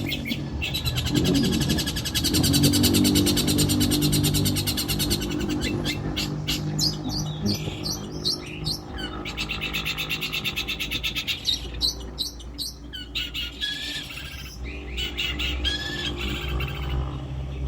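Long-tailed shrike (cendet) singing: a fast, high, rattling trill about a second in, then a run of sharp chirps and short whistled phrases that vary from note to note, over a low steady hum.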